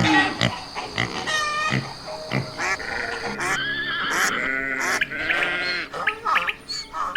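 A mix of farm animal calls, several different calls overlapping and following one another in quick succession.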